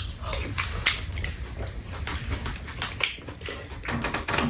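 Mouth sounds of people eating fried rice, wet chewing and lip-smacking, mixed with spoons clicking and scraping against the bowls in irregular short ticks, over a low steady rumble.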